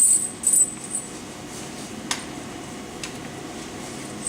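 Metal tire chain links and a chain repair tool clinking as they are handled. A cluster of sharp clinks comes in the first half-second, then a single click about two seconds in.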